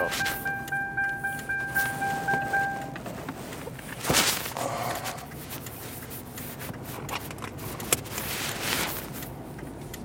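Car seatbelt warning chime beeping in rapid, steady pulses, which signals the driver's seatbelt is unbuckled; it stops about three seconds in. After that, low road noise in the cabin with a couple of bursts of rustling and a sharp click near the end.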